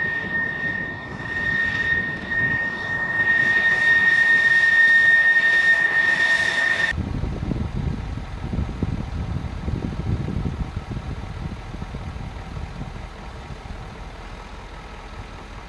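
F-16 jet engine whining steadily as the jet taxis, the high whine growing louder as it nears. About seven seconds in it changes abruptly to a low rumble from the jet moving off down the runway, slowly fading.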